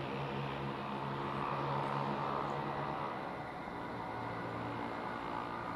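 Northern Class 195 diesel multiple unit approaching through the station: a steady diesel engine hum mixed with the running noise of wheels on rail, which swells about two seconds in.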